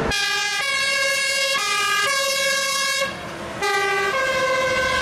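Fire engine's two-tone siren, switching back and forth between a high and a low note, with a brief break about three seconds in.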